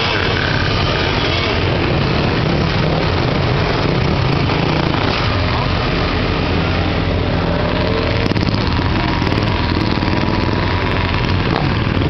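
Several motorcycle engines idling and running together, a steady, loud low engine sound.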